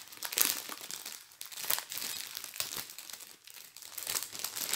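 Plastic packaging crinkling as it is handled, in quick irregular bursts: the wrapping and small bags of a diamond-painting kit.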